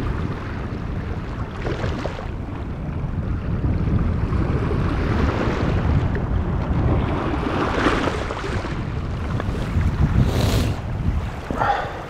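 Small sea waves breaking and washing back over a pebble beach, with wind buffeting the microphone. The surf swells and ebbs, with a louder hissing wash over the stones about ten seconds in.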